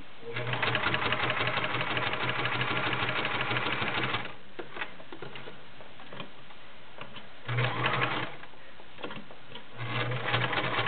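White model 999 sewing machine's 1-amp motor stitching through six layers of denim, running in spurts: a steady run of about four seconds, a brief run partway through, and another run starting near the end. Light clicks come in the pauses between runs.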